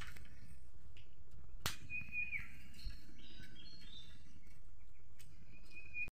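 A few faint, short high chirps over a steady low background hum, with a single sharp click about one and a half seconds in; the sound cuts off abruptly at the end.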